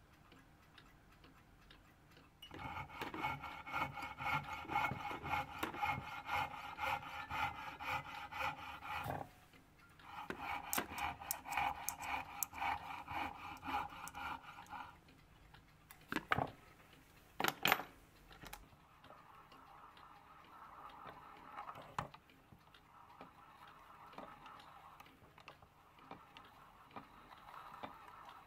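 Small lathe running while a brass threaded rod is cut and drilled, with rasping metal-cutting noise in two long spells. Two sharp clicks follow, then a quieter spell of cutting.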